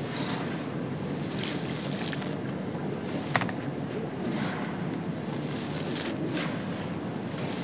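Dusty dry red sand handled and then poured onto wet sand, a gritty rushing hiss with short scrapes, and a heavier pour about six seconds in. A single sharp click comes a little past three seconds in.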